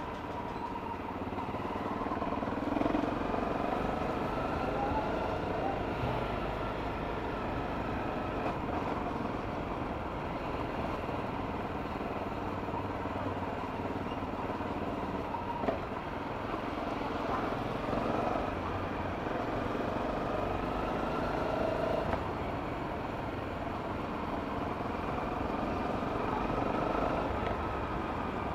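Honda CRF250L's single-cylinder engine running under way, its pitch rising and falling with the throttle. One brief knock about halfway through.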